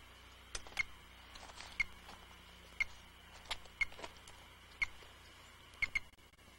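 Short sharp beeps, evenly spaced about once a second, typical of a radio telemetry receiver picking up a wolf radio collar's transmitter pulse, with a few softer handling clicks in between.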